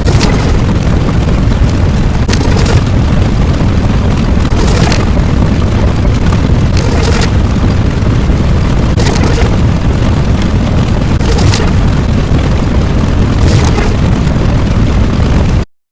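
Loud, continuous rumbling sound effect like a long explosion, with a hissing, crackling surge about every two seconds; it cuts out for a moment near the end.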